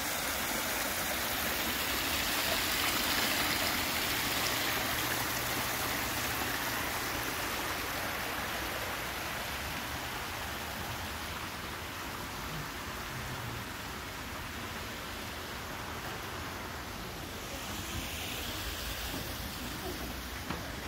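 Steady rush of flowing water, a little louder in the first few seconds.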